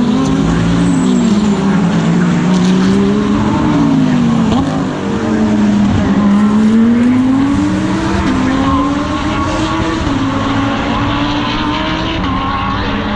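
GT3 race car engine heard from on board at full race load, its pitch climbing repeatedly and dropping sharply with gear changes and braking for corners.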